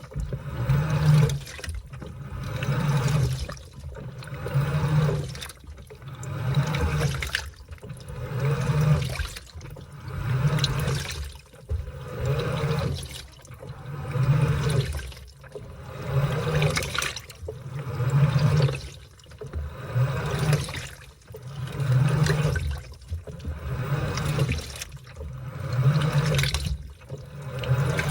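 Washing machine washing a load of laundry: water sloshing as the clothes are churned in the drum, with the motor humming low under each stroke. The sound swells and fades in an even rhythm, about one stroke every two seconds.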